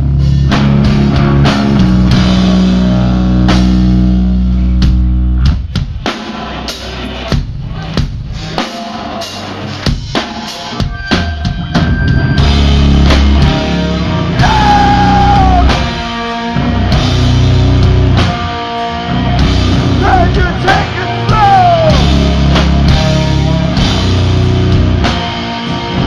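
Live sludge metal band playing, slow and heavy, with guitars, bass and a drum kit. Long held low chords give way after about five seconds to a sparser stretch of drum hits, and the full band comes back in about halfway through with vocals over it.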